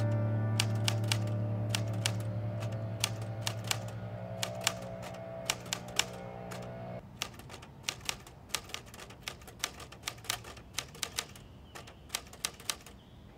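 Typewriter keys struck in quick, irregular runs of sharp clacks, over fading music with held tones that stops about seven seconds in; the typing then carries on alone.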